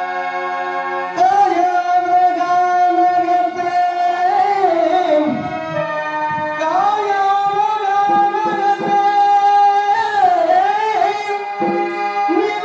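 A Tamil stage-drama song. A harmonium holds a steady chord, then about a second in a singer enters with long, ornamented held notes over it. The voice breaks off briefly around the middle and resumes.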